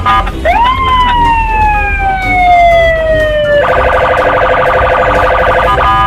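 Police car siren: one tone sweeps up and then falls slowly for about three seconds. It then switches to a rapid pulsing warble of several tones, over a low rumble.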